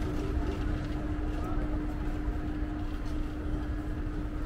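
City street ambience: a steady low traffic rumble with a constant mid-pitched hum running under it.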